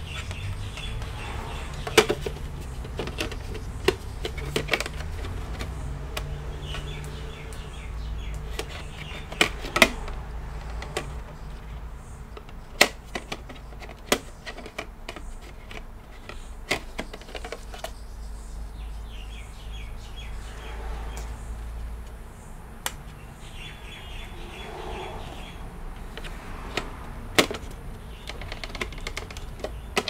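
Scattered sharp clicks and taps as the round black bottom cover of a Mac Mini is pressed down and twisted back onto its aluminium case, with a low rumble of hands handling it. A pet bird chirps in short runs a few times in the background.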